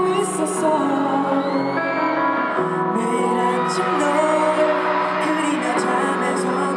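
A slow K-pop ballad played over concert loudspeakers, with male voices singing over a soft backing track.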